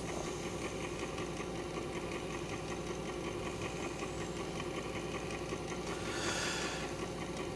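A 1951 RCA Victor 45-EY-4 record changer running: a steady AC motor hum with a rapid, even chatter from the turntable and changer mechanism. A brief rush of noise comes about six seconds in.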